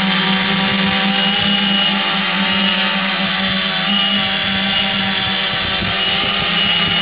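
Large multirotor camera drone hovering close by: its electric motors and propellers make a steady buzzing hum of several tones, which waver slightly in pitch partway through as the motors adjust.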